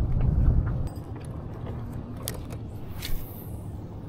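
Wind buffeting the microphone as a low rumble, strongest in the first second, with a few faint clicks and a short hiss about three seconds in.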